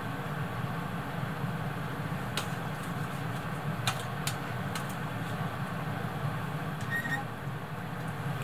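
A steady low mechanical hum, such as a kitchen appliance or extractor fan, with a few light clicks in the middle and a short high beep near the end.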